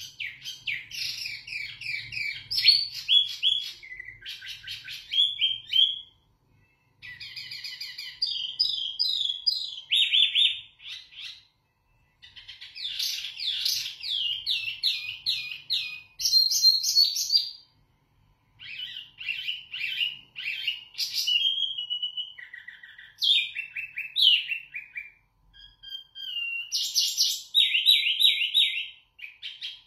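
Caged wambi mini songbird singing long, varied phrases of quick chirps, trills and whistled notes. The song comes in bursts of several seconds broken by short pauses.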